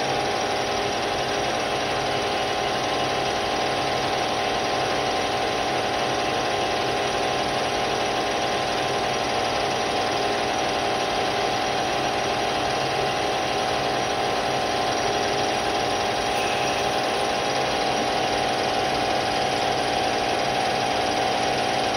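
EMCO lathe spindle running steadily at about 1100 RPM, a constant hum with a clear whining tone from the motor and headstock drive.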